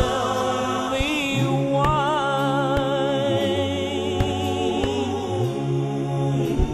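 A slow song playing in a gap between sung lines: held, wavering tones over a bass line that steps between notes. A few sharp thuds come at uneven intervals, the loudest near the end.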